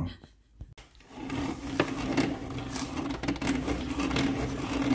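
Small electric pencil sharpener running and grinding a pencil to a point. Its steady motor hum with a grinding rasp starts about a second in.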